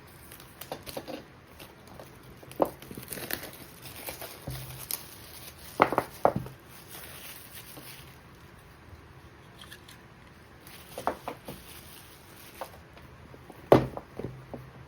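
Packaging being handled and opened: crinkling and rustling with scattered taps and knocks, the loudest a pair of knocks about six seconds in and one more near the end.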